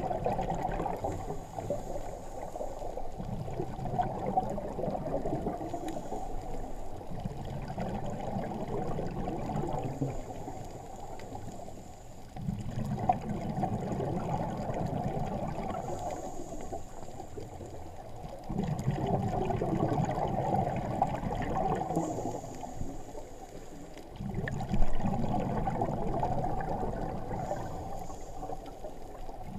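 Scuba diver breathing through a regulator, heard through a GoPro's underwater housing: a short hiss of inhaled air, then a burst of exhaled bubbles lasting two to three seconds, repeating about every five seconds.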